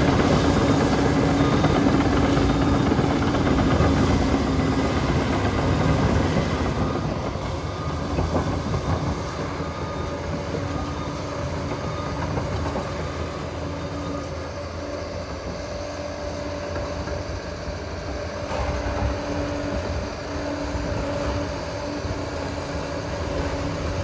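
Liebherr PR 746 crawler dozer working, its diesel engine running with a dense clatter of steel tracks, getting somewhat quieter after about seven seconds.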